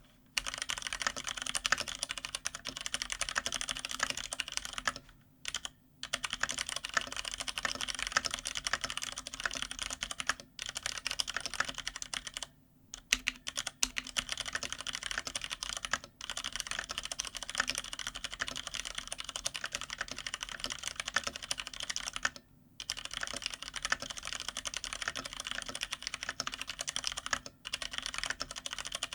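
Fast, continuous typing on a GTune (Hansung) GK993B SKY mechanical keyboard with stock, unlubed Cherry MX Brown switches, set on a deskpad. There are a few short pauses between bursts of keystrokes.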